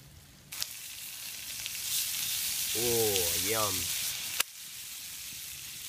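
Tilapia fillets sizzling in garlic butter on a hot camp hotplate. The sizzle comes in suddenly about half a second in and breaks off sharply past the middle, going on more quietly after.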